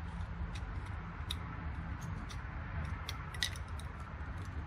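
Scattered light clicks and taps of hand tools working on a lawnmower's starter motor, a few in quick succession about three and a half seconds in, over a steady low hum.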